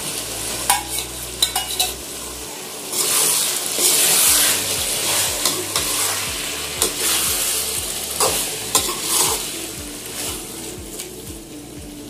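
Metal slotted spoon stirring spinach, chana dal and potatoes in a sizzling aluminium kadhai, with sharp clinks of the spoon against the pan. The sizzle swells louder for a couple of seconds about three seconds in.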